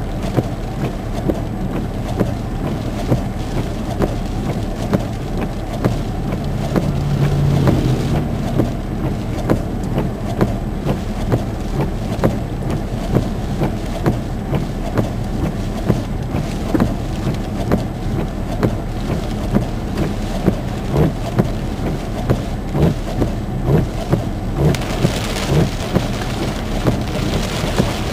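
Heavy rain hitting a vehicle, heard from inside over a steady low road and engine rumble, with frequent sharp taps of drops on the body and glass. A louder rain hiss comes in near the end.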